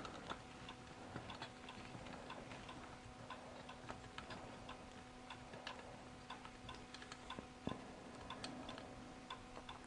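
Faint light ticking and clicking, irregular and many times over, above a steady low electrical hum.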